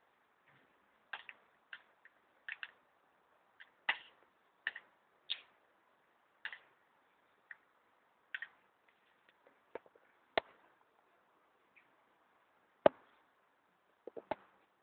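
Sparse, sharp clicks and taps at irregular intervals, about one or two a second with gaps, over a faint hiss. The loudest comes about thirteen seconds in.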